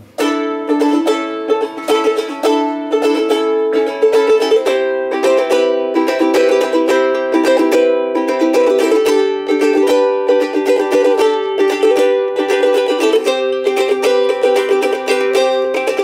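G-Labo soprano ukulele, a thin-bodied 'Usulele' with a spruce top and walnut back and sides, strummed through a continuous run of chords. The notes ring out full for such a small body.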